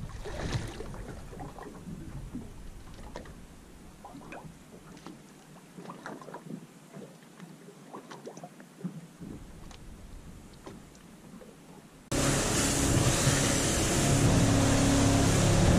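Faint water sounds and small scattered knocks while the boat sits still, then about twelve seconds in an abrupt change to the boat under way. From there an outboard motor runs steadily under heavy wind noise on the microphone and spray off the hull, and this is the loudest part.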